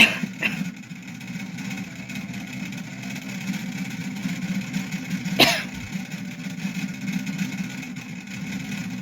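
A person coughing: a sharp cough at the start with a second one just after it, then another cough about five and a half seconds in, over a steady low hum.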